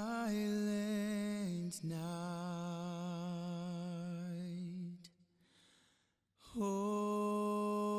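Background music: a single wordless voice holding long low notes with a slight vibrato, stepping in pitch now and then. It breaks off for about a second and a half around five seconds in, then comes back on a held note.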